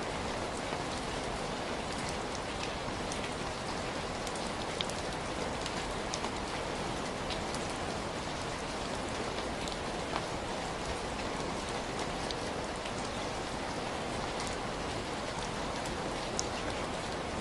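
Heavy rain falling steadily, a dense even hiss with scattered individual drops ticking on a surface.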